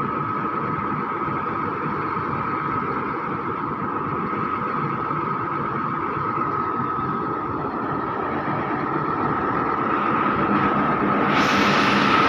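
Truck engine running steadily with a constant whine. About 11 seconds in, a loud hiss joins it.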